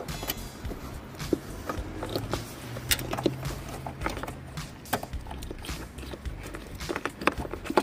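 Irregular clicks, knocks and rustling of hands working plastic engine-bay parts and a wiring connector behind the headlight, fitting an LED bulb.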